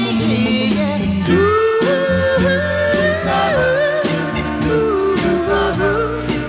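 Music: an oldies rock-and-roll/soul record, with a gliding lead melody over a full band and a steady drum beat.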